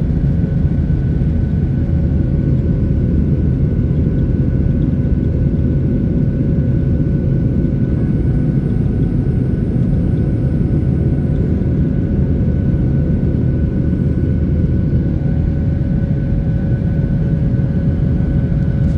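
Jet airliner cabin noise: the engines' steady, loud rumble, with a constant hum running through it.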